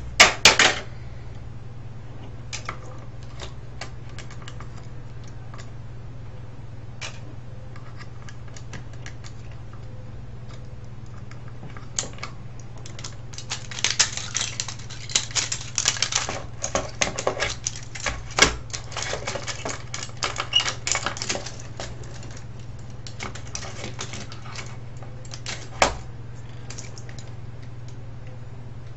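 Small plastic and metal parts of a cassette tape mechanism clicking and clattering as it is taken apart by hand, with a loud cluster of clicks at the start and a long flurry of rapid clicks in the middle. A steady low hum runs underneath.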